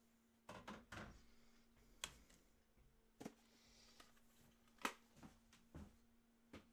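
Near silence broken by a handful of light, irregular clicks and knocks, the loudest about five seconds in, over a faint steady hum.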